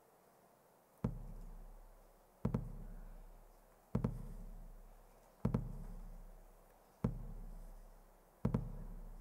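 Hip-hop beat's bass line played back from a laptop: a deep electronic bass note starting about a second in and repeating about every second and a half, each with a sharp attack and a long fading boom, like a slow heartbeat.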